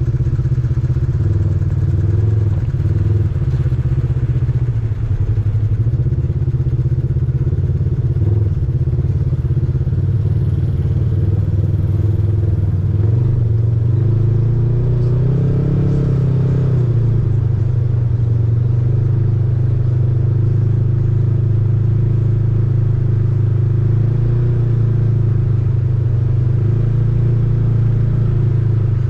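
Off-road vehicle engine running steadily at a low, even pitch, rising briefly about halfway through before settling again.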